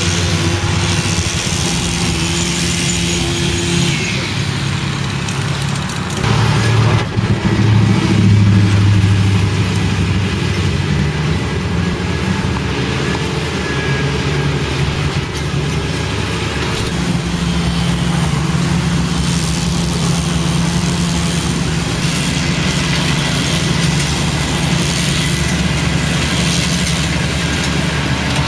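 A New Holland compact tractor's diesel engine running steadily while driving a rear-mounted rotary mower, louder for a few seconds about a quarter of the way in.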